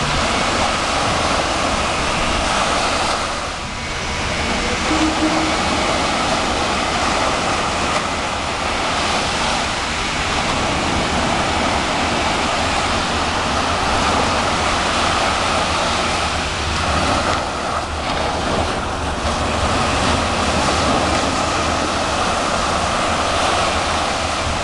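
Caribbean surf breaking and washing up the beach: a continuous rushing of waves that swells and eases, dipping briefly a few seconds in.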